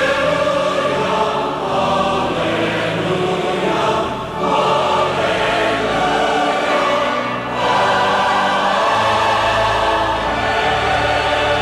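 Choir singing in long, sustained phrases, with short breaths between phrases about four and seven seconds in.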